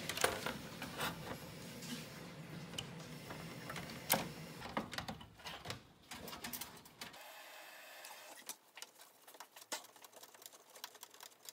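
Scattered light clicks and taps of a motherboard and screws being handled and fitted into a PC case.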